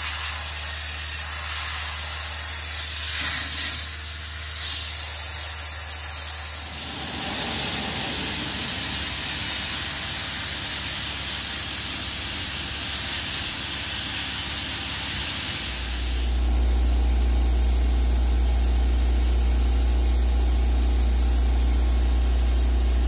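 Abrasive media blasting of a rusty steel boat hull: a loud, steady hiss of compressed air and grit from the blast nozzle, over a low hum. The sound shifts abruptly twice, and the hum grows louder about two-thirds of the way through.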